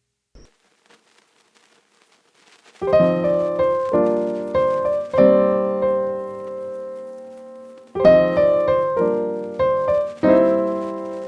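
Background music: piano chords struck one after another, entering about three seconds in after a near-silent gap.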